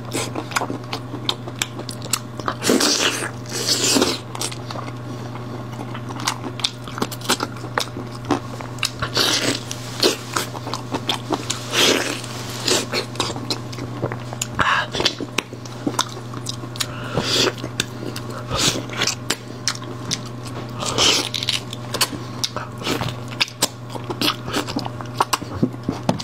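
Close-miked eating sounds: a man biting, chewing and slurping boiled beef coated in spicy garlic sauce, with wet smacks and short sucking bursts coming again and again. A steady low hum runs underneath.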